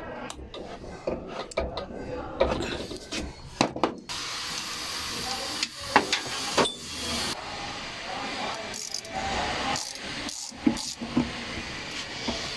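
Workshop tool and metal-part noises: scattered clicks, knocks and scraping for the first few seconds, then a steady hiss starting about four seconds in, with a few more clicks over it.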